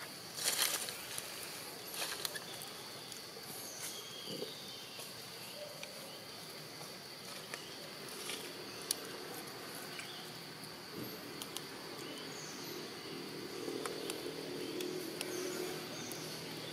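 Outdoor ambience: a steady high-pitched insect drone over a soft hiss, with scattered faint bird chirps and a few short crackles, the loudest just after the start. A faint low hum rises about thirteen seconds in.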